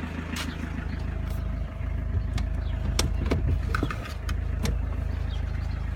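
A car engine idling steadily while the Fiat Doblo's electric window motor runs with a thin, steady whine, driving the glass on its cable regulator. Scattered clicks and knocks come from the door. The glass does not close fully and jams.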